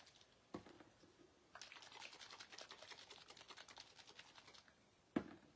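Plastic bottle of acrylic marbling paint shaken hard to remix colours that have separated: a faint, quick rattle of about ten shakes a second lasting some three seconds. A single sharp knock comes shortly before it and another near the end.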